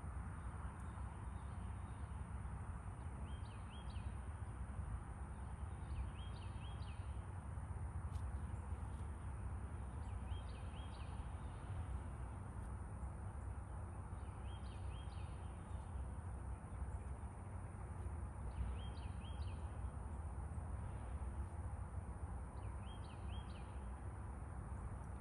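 Outdoor ambience: a steady low rumble and hiss, over which a bird repeats a short high call of two or three quick notes about every four seconds, with a faint steady high-pitched whine underneath.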